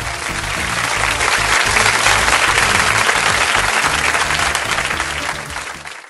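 Audience applauding over background music, both fading out near the end.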